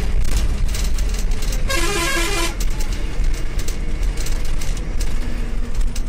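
Steady low rumble of a moving bus's engine and tyres on a rough dirt road, heard from inside the cabin. A vehicle horn sounds once in quick pulses for under a second, about two seconds in.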